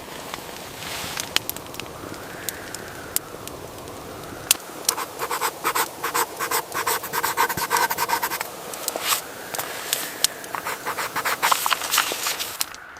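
Rapid scratching and crackling handling noise, thickest from about five seconds in until near the end, over a faint whistle that slowly rises and falls.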